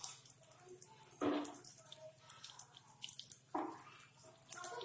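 Mustard seeds sizzling and crackling in hot ghee and oil at the bottom of a pressure cooker, with many small pops and a couple of louder sputters.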